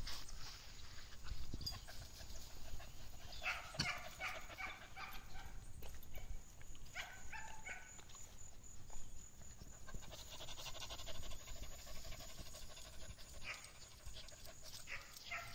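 Small dogs barking and yipping in short bursts: a cluster about four seconds in, another around seven seconds, and a couple more near the end, over a low rumble.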